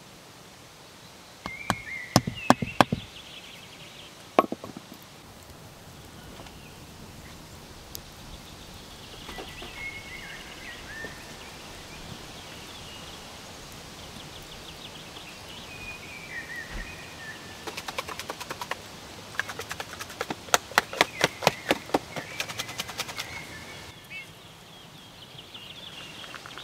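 A few sharp knocks as the back of a hatchet drives nails through a salmon fillet into a cedar plank, with birds chirping now and then. Later comes a long run of quick clicking taps lasting about six seconds.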